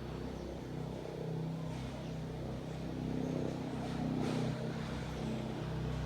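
Steady low engine hum, swelling slightly a few seconds in.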